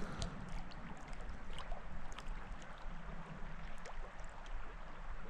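Steady rushing of creek water with scattered faint clicks and ticks.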